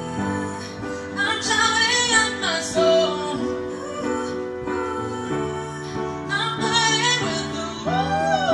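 A woman sings a pop ballad into a handheld microphone, with long held notes over a steady instrumental backing. Near the end a man's voice takes up the melody in the duet.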